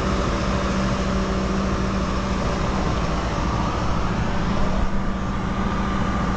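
Steady drone of a running engine, with a low even hum and no change in pace.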